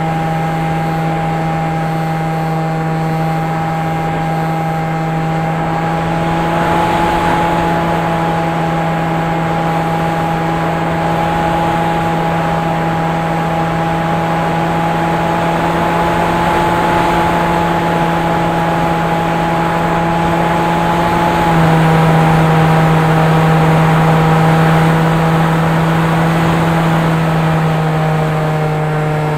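FPV quadcopter's motors running at a steady throttle: a loud, steady hum with overtones. It shifts slightly in pitch about a quarter of the way in and again about three quarters of the way in.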